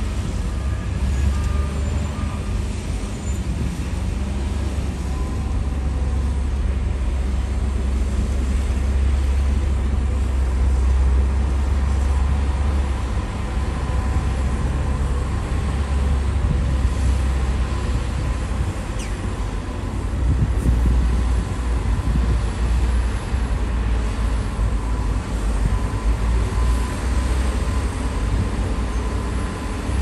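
Heavy diesel engine of earth-moving machinery running continuously with a deep, low rumble that swells and eases a little over time.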